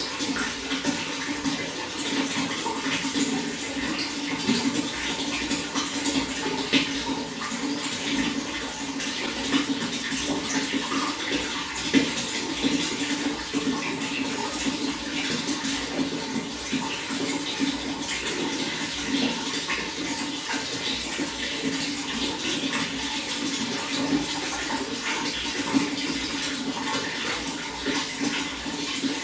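Running water, steady and continuous, with fine splashing and gurgling throughout.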